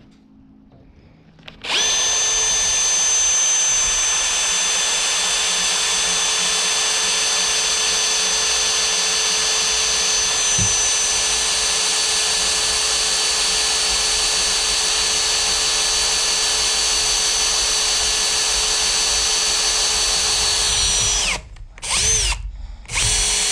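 Cordless drill boring a hole through steel clamped in a vise, re-drilling the hole from the other side. The steady whine starts abruptly, runs for nearly twenty seconds and stops, then comes back as two short bursts near the end.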